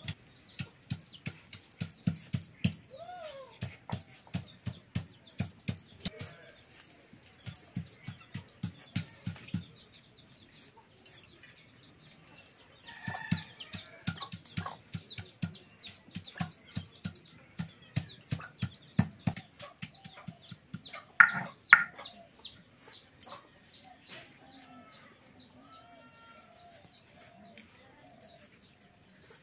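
Rapid, steady knocking of food being chopped and crushed by hand on a hard surface, about two to three strikes a second, in two long runs. In the pauses between and after them, chickens cluck, with two sharp loud sounds about two-thirds of the way in.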